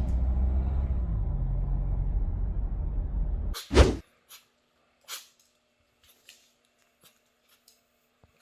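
A steady low rumble for about three and a half seconds, cut off by one loud knock, then a few faint clicks and taps.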